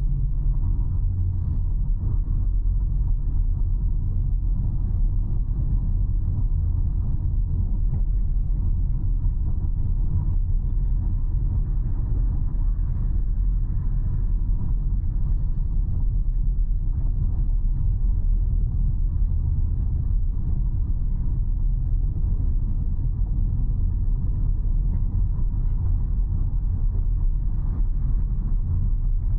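Steady low rumble of a car being driven, the engine and tyre noise holding an even level.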